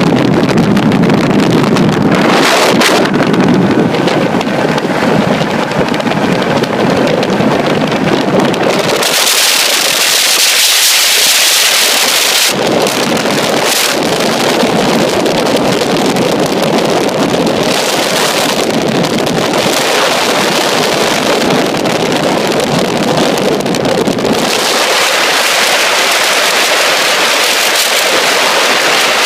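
Heavy wind noise buffeting the microphone on a speedboat running at over 90 mph, with the boat's engine and water rush underneath. The rush is loud and steady, shifting several times between a deep rumble and a bright hiss.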